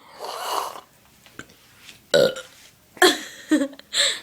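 A girl burping several times in a row, in short separate bursts after a breathy first sound.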